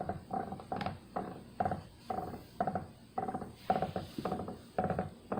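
Ashford Traveller spinning wheel being treadled with its drive band off: a rhythmic creaking squeak, about two a second, keeping time with the treadling. The noise persists even though the wheel has been oiled, and its cause is unknown.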